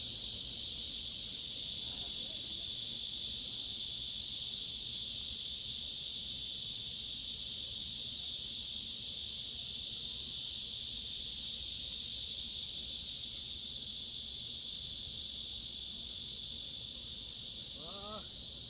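Cicadas droning in one steady, unbroken high-pitched buzz. A few faint short rising chirps come in near the end.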